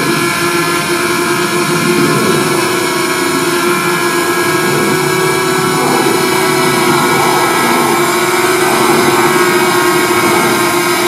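DJI Mavic Mini drone in flight nearby, its four propellers giving a steady, loud, multi-toned whine.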